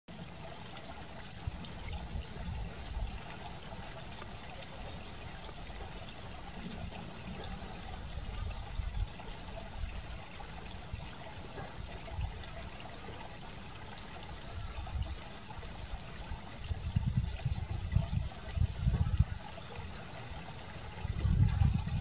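Steady trickling of running water, with a low rumble that comes and goes and grows stronger in the last few seconds.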